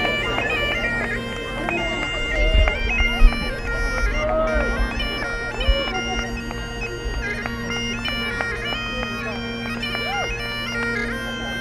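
Bagpipes playing a tune over steady drones, with a sharp knock about three seconds in.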